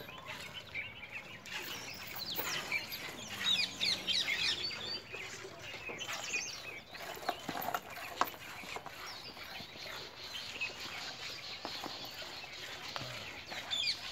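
Birds chirping and calling: many short, quick chirps, busiest a few seconds in.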